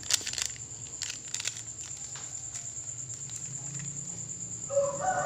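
Plastic sachet of powdered chicken stock crinkling and being tapped as it is shaken empty, a quick cluster of clicks over about the first second and a half. After that only a faint low hum with a thin, steady high-pitched tone above it.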